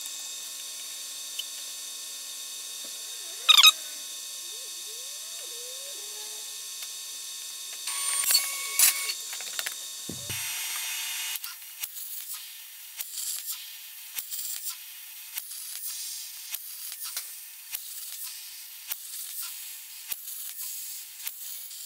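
Steady workshop hum broken by a few sharp clicks and squeaks, then, from about halfway, irregular light mechanical clicking as the CNC plasma table is readied to cut.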